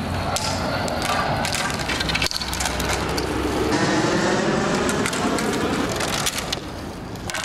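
Hockey sticks clattering on asphalt as they are dropped into a pile and shuffled by hand: a run of sharp clacks and knocks over steady background noise.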